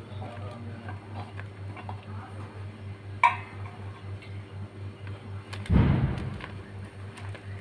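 Stainless steel dishes: one sharp, ringing metal clink about three seconds in as eggplant pieces are tipped off a steel plate into a steel bowl. This is followed near six seconds by a short burst of rustling and squelching as hands mix the eggplant into the spice paste, over a steady low hum.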